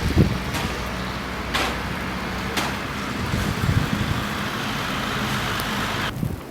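Blizzard wind rushing steadily, with a low steady engine-like hum underneath and a few faint clicks. It cuts off suddenly near the end.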